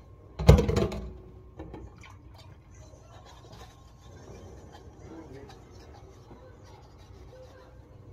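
A hard object knocked or set down with a loud clunk about half a second in, ringing briefly, then a smaller knock and quiet handling and rustling.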